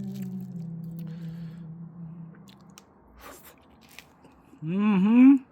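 Close-up chewing and biting of crispy grilled pompano, with a few small crunches. Near the end comes a short, loud hummed 'mmm' of enjoyment that rises in pitch.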